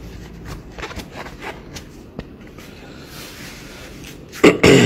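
Rustling and small handling clicks of clothing and a cap being put on and adjusted. A short, loud vocal sound, a sharp breath, comes near the end.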